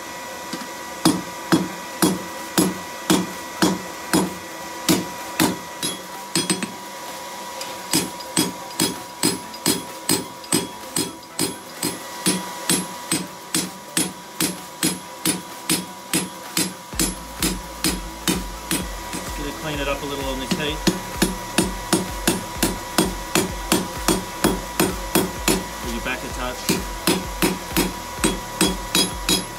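Hand hammer striking a red-hot bar of 5 mm steel stock on an anvil, a steady run of about two to three blows a second, drawing the bar out. A steady hum runs underneath.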